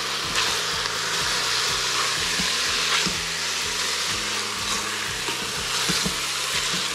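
Pork pieces sizzling in an Instant Pot's stainless steel inner pot as they brown, stirred and turned with a silicone spatula: a steady frying hiss with scattered scrapes and knocks of the spatula against the pot.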